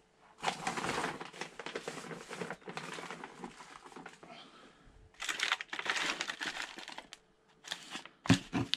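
Rustling and crinkling of potting soil and thin plastic pots being handled, in two stretches of a few seconds each, then a few sharp knocks near the end as a plastic seedling cell tray is set down on the bench.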